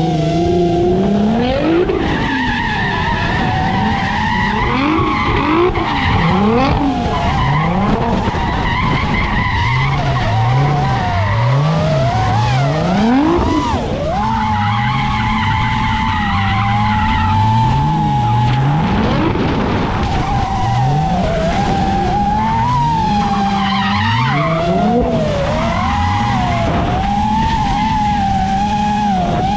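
FPV drone motors whining, the pitch bending up and down with throttle, over a drift car's engine revving up and down repeatedly and its tyres skidding as it slides.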